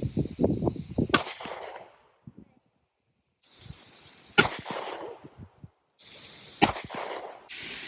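Three single gunshots from a firearm at a shooting range, about a second, four and a half seconds and six and a half seconds in. Each is a sharp crack followed by a short echo.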